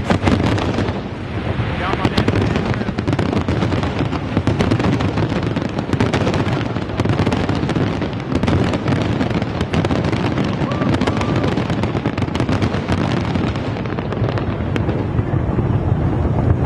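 Fireworks display: a dense, continuous barrage of aerial shell bursts and crackling, with no let-up.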